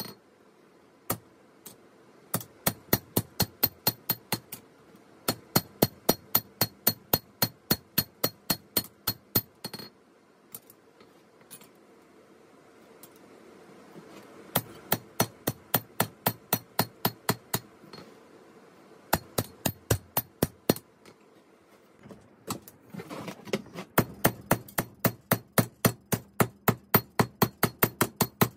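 Hand hammer striking hot 5160 spring steel on an anvil during forging of a machete blade: quick, even blows at about four to five a second, each with a bright ringing clang. The blows come in runs of a few seconds broken by short pauses.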